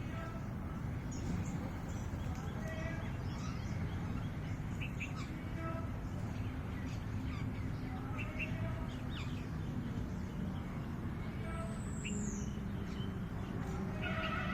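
Small birds chirping and calling on and off over a steady low background rumble, with one high, falling whistle about twelve seconds in.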